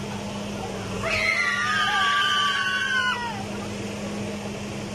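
Riders on a swinging dragon-boat fairground ride screaming: one long high scream starts about a second in, lasts some two seconds and drops in pitch as it ends, over a steady low hum.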